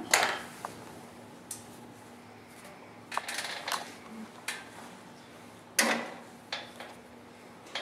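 Scattered sharp knocks and clatters of pottery tools and clay ware being handled at a potter's wheel, a loud one right at the start and another about six seconds in, over a faint steady low hum.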